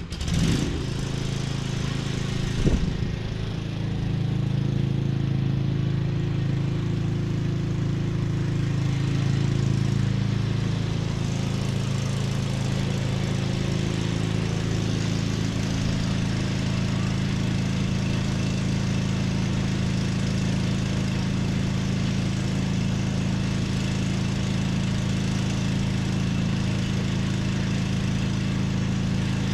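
Cub Cadet XT1 riding lawn mower engine running steadily at an even speed. It comes in abruptly right at the start, with one sharp thump about three seconds in.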